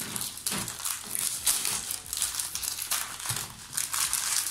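Crinkly plastic wrapper of a cookie packet, rustling and crackling irregularly as it is opened by hand.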